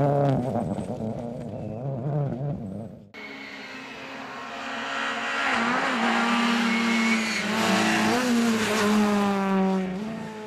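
Rally car engines at speed. First a Ford Fiesta rally car pulls away, its engine note wavering and dropping. About three seconds in, the sound switches abruptly to a Citroën C2 rally car coming closer, its engine getting louder and louder with brief pitch jumps from gear changes.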